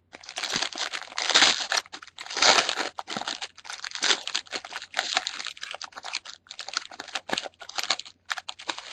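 A football trading card pack wrapper being torn open and crinkled by hand: an irregular, continuous crackling and rustling.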